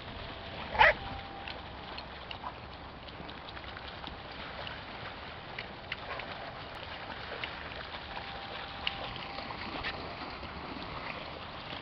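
A dog barks once, short and loud, about a second in, over a steady hiss of wind on the microphone with a few faint scattered ticks.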